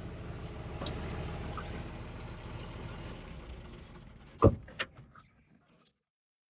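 John Deere 4030's six-cylinder diesel engine idling steadily, fading away about four seconds in. A single sharp thump about four and a half seconds in, followed by a lighter knock.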